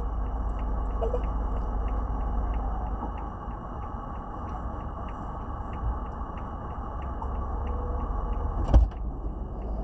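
A parked car idling with a steady low rumble, and a regular faint ticking about twice a second. Near the end there is a single sharp, loud thump.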